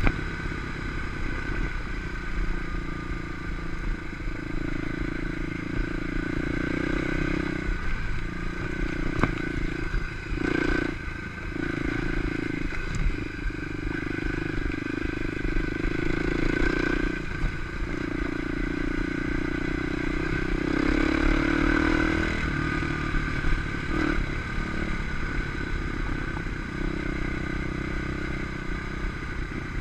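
Kawasaki KLX 250 dirt bike's single-cylinder four-stroke engine running under way on a dirt track, its note pulling strongly for a few seconds at a time with short drops in between, over a rattle of the bike on the rough ground.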